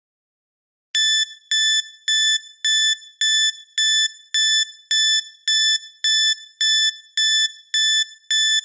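Countdown timer alarm going off: a run of short, high electronic beeps, about two a second, starting about a second in.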